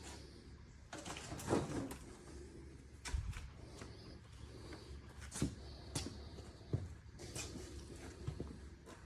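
Scattered light knocks and clinks of metal engine parts being handled as the crankshaft is worked out of the engine block, over a low steady hum.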